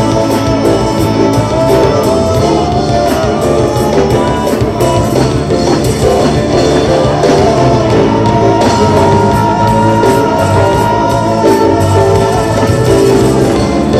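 A live band plays a rock-style song, with a drum kit keeping a steady beat, guitar, and voices singing.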